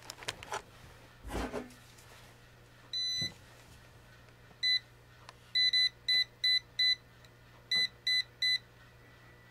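Non-contact voltage tester beeping in a string of short, high beeps in irregular clusters from about three seconds in, as it is held to the well pump's pressure switch terminals. The beeping shows the switch is still live.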